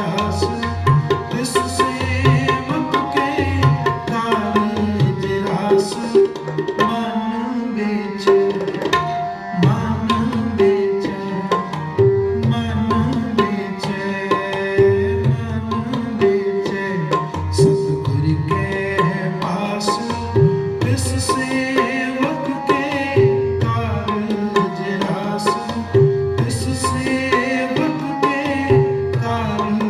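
Tabla playing a steady rhythm of sharp strokes and deep bass-drum strokes under harmonium-style held melodic notes: the instrumental lead-in to a Sikh kirtan shabad.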